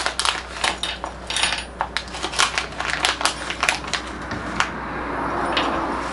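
Spot-welder kit parts and their packaging being handled: quick, irregular clicks and crackles, with a softer rustle from about five seconds in.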